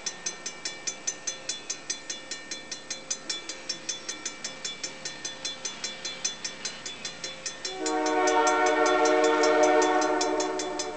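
Level-crossing warning bell ringing rapidly, about five strokes a second. About eight seconds in, the approaching freight train's lead locomotive, Roberval-Saguenay RS 64, sounds its multi-note air horn in one long blast of nearly three seconds, which then fades.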